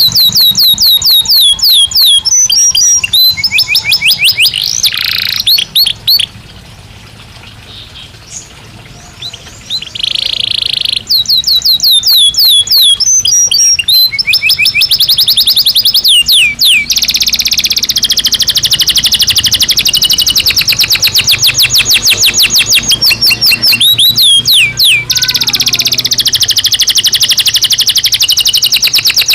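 Belgian canary singing: loud, very fast trills of rapidly repeated high notes. The song drops away briefly about a fifth of the way in, then resumes with long, even rolls of notes.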